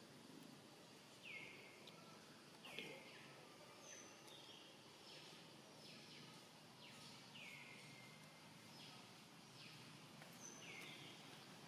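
A faint, repeated bird call over quiet outdoor background: short calls that each slide down in pitch and level off, roughly one a second.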